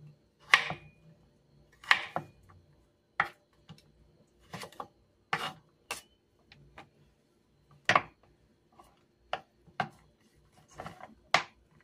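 Kitchen knife cutting carrots into strips on a wooden cutting board: slow, separate knocks of the blade on the board, irregularly spaced, roughly one or two a second.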